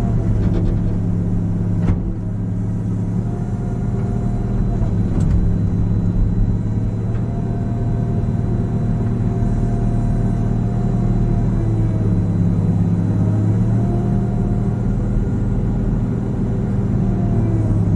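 Cat 315 excavator running steadily while digging, its engine a continuous low drone with a whine above it that rises and falls gently in pitch as the load changes. There is one sharp knock about two seconds in.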